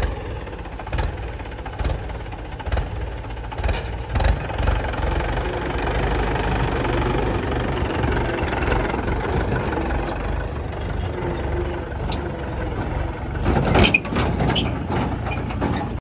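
Mahindra 475 DI tractor's four-cylinder diesel engine running, picking up revs about five seconds in, with scattered knocks and a louder burst of clatter near the end.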